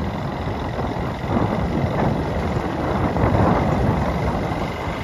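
Ride noise on a moving motorcycle: wind buffeting the microphone over the bike's running engine, an uneven low rumble.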